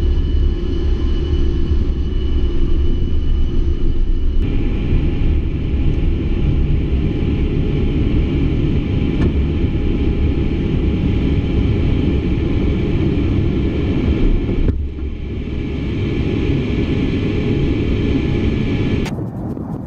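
Inside the cockpit of an A-10 Thunderbolt II during takeoff and climb-out: the loud rumble of its twin turbofan engines and rushing air, with a steady high whine over it. The sound shifts abruptly at about four and fifteen seconds in.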